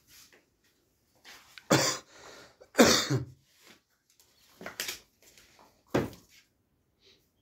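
Doberman giving four short, breathy huffs at intervals of a second or two, the loudest about three seconds in.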